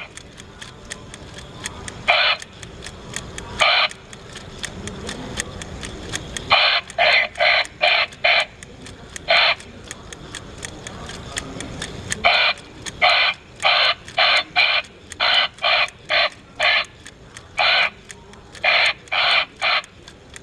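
Animated skeleton bird prop giving a string of short electronic squawks through its little speaker, in runs of several calls with pauses of a second or more between runs. A steady faint ticking runs underneath.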